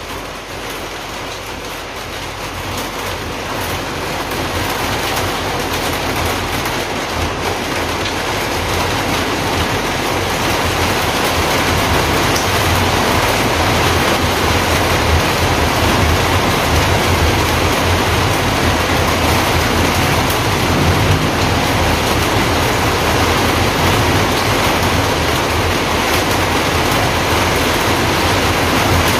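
Heavy rain falling: a loud, steady hiss with a low rumble underneath, building over the first several seconds and then holding.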